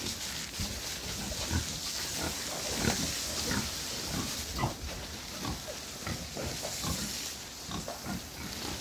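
Pigs grunting and squealing in many short calls, over a steady high hiss.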